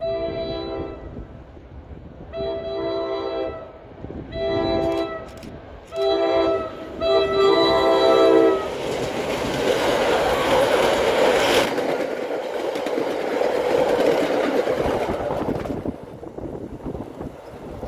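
Commuter train's locomotive horn sounding several blasts for a grade crossing, the last held the longest, warning of the train's approach. Then the train rushes past on the rails, loudest about halfway through and fading near the end.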